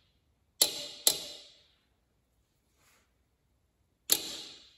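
Click-type torque wrench clicking as it reaches its set torque on a Predator 420's cylinder head bolts. There are two sharp metallic clicks about half a second apart near the start and another near the end, each ringing briefly.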